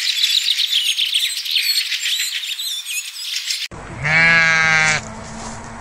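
High-pitched chirping and twittering for the first three and a half seconds, cut off suddenly; then a sheep bleats loudly once, a single baa about a second long.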